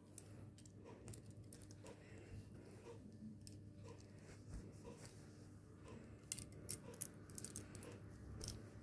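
Scattered small metallic clicks and taps of a butterfly knife trainer's handles being worked open by hand, with a sharper click about three and a half seconds in and a quick run of clicks near the end.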